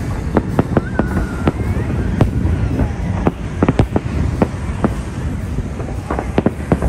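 Fireworks display: a rapid, irregular string of sharp bangs from bursting shells, several a second, over a steady low rumble, with a brief whistle about a second in.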